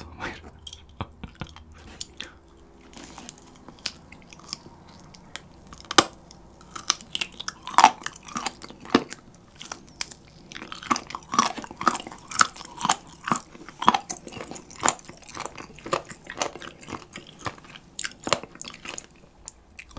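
Close-miked chewing and crunching of very crispy rice-coated fried chicken, gnawed off a gristly, cartilage-filled piece on the bone. The crunches are sparse at first and come thick and fast from about six seconds in.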